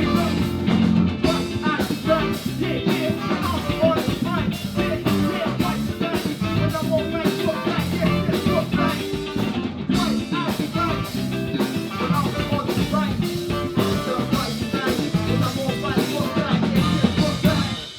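Live band music with a drum kit keeping a steady beat under melodic instrument lines.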